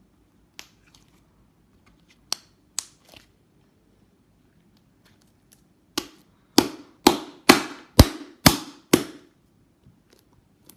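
Thick, sticky butter slime on hands giving sharp, loud pops and slaps. A few single pops come first, then a run of about seven, roughly two a second.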